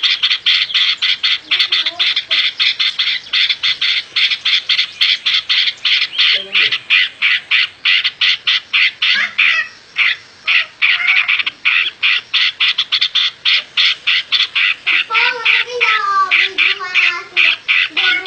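Bird squawking in a fast, steady chatter of short harsh calls, about four to five a second, with a few lower sliding notes near the end.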